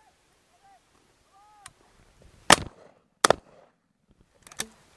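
Shotgun shots at driven game birds: a loud shot about two and a half seconds in, a second less than a second later, then two fainter shots close together near the end.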